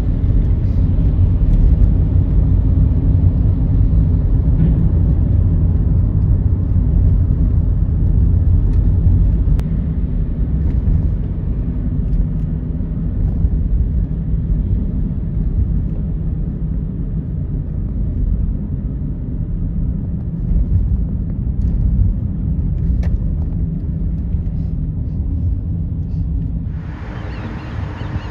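Steady low vehicle rumble with a faint engine hum. Near the end it cuts abruptly to a different, brighter recording of vehicle noise.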